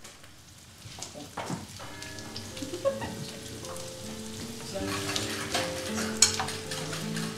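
Kitchen sounds: a pot of potatoes boiling on the hob, with a utensil clinking and scraping in a bowl. Soft music with held notes comes in about two seconds in.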